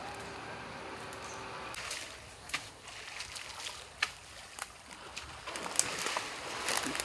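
A Sri Lankan elephant wading through shallow water, its legs splashing. After a steady watery wash, short sharp splashes come from about two and a half seconds in.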